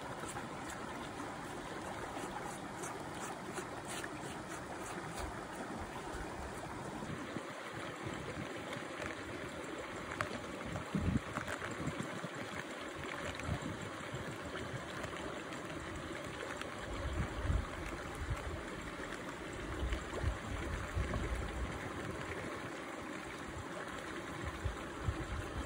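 Steady rush of running stream water. Faint light ticks come in the first few seconds, and a few low thumps come later.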